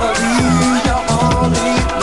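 Disco-house dance music with a steady four-on-the-floor kick drum at about two beats a second, a bass line and swooping synth sounds.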